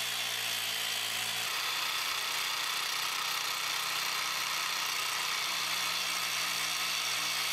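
LightPro 3000 curb groove cutter running steadily, its blade cutting a groove into a concrete landscape curb: a steady grinding hiss over the motor's low tone. The low tone drops away about a second and a half in and comes back near the end.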